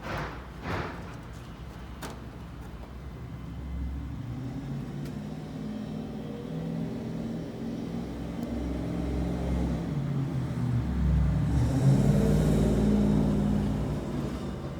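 A car's engine running, getting louder and shifting in pitch to a peak about twelve seconds in, then easing off, as a car drives past. Two short knocks sound in the first second.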